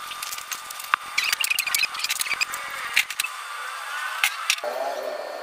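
Groceries being handled on a counter: packaging rustling and bottles tapping, with several sharp clicks, the busiest stretch between about one and three seconds in.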